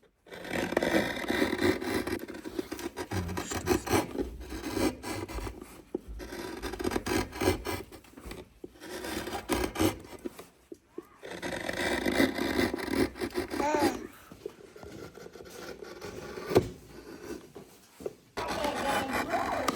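Hand tools scraping and rasping wood in quick repeated strokes, as a wooden bowl is carved by hand. The sound breaks off abruptly a few times.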